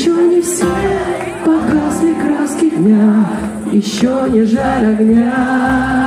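A woman singing a slow melody live over a strummed acoustic guitar, with long held notes that bend and slide in pitch, amplified through a stage PA.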